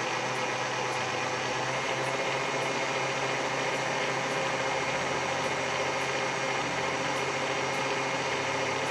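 Stand mixer motor running steadily as it beats egg whites into meringue, with sugar being added gradually.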